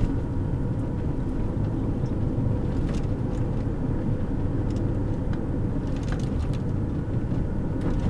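Steady road and engine rumble of a moving car heard from inside the cabin, with a few faint ticks.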